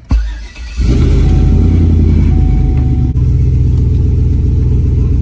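Chevrolet Silverado 1500 pickup engine being started: a brief crank that catches within about a second, then runs at a steady idle, settling slightly about three seconds in.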